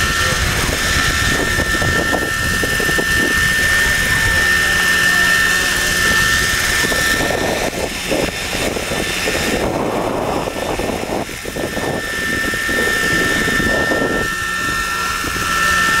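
Radio-controlled scale Apache model helicopter hovering and lifting off, a steady high whine from its drive and rotors that weakens in the middle and comes back near the end. Gusty wind buffets the microphone underneath.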